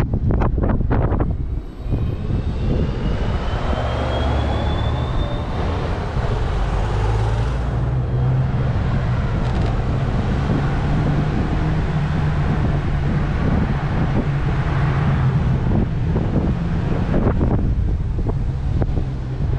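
Car driving on city streets: engine running as a steady low hum under tyre and road noise, with a thin rising whine a couple of seconds in. Wind buffets the microphone near the start and again near the end.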